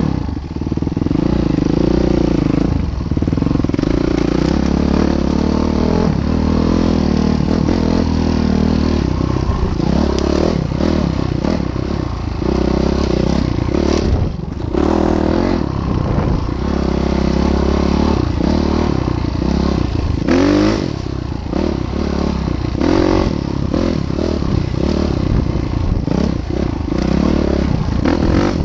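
A train passing on a railway bridge: a steady low rumble with frequent clattering and scraping of wheels on the rails.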